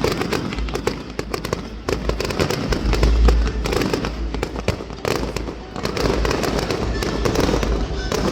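Fireworks going off in a dense, irregular string of sharp crackles and pops, with heavy low rumbling underneath.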